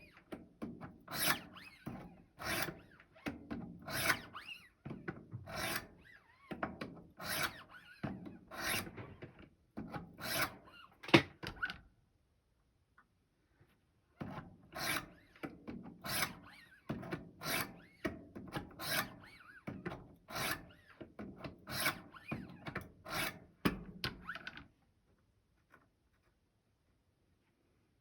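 Wicked Edge 200-grit sharpening stones drawn in a steady run of short rasping strokes along a Rex 45 steel knife edge, about one stroke a second or a little faster. These are passes to knock off the burr. The strokes pause briefly about twelve seconds in and stop a few seconds before the end.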